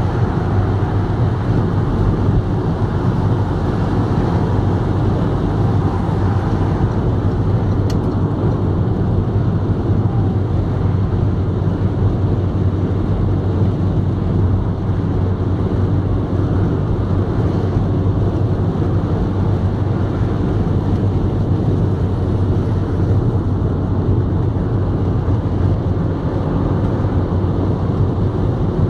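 Steady road and engine noise of a car driving at motorway speed, heard inside the cabin, with a constant low hum.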